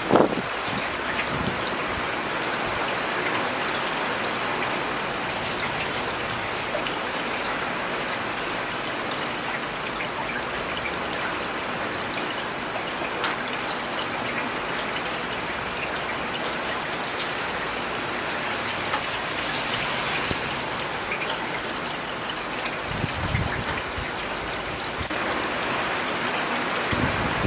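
Steady rain falling in a city, an even hiss with scattered individual drops ticking. A brief low rumble comes through about three quarters of the way in.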